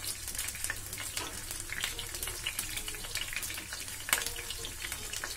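Chopped onions sizzling and crackling in hot oil in a frying pan, with a louder crackle about four seconds in as a hand drops chopped green chillies into the oil.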